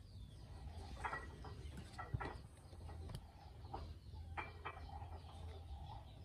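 Faint, scattered short bird calls over a low steady hum.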